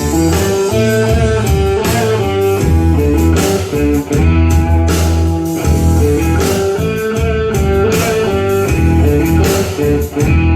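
Electric-guitar music with a strong bass line playing through a Sony SS-B3000 three-way bookshelf speaker with an 8-inch woofer, picked up by a camera microphone in the room. The music cuts off abruptly at the very end.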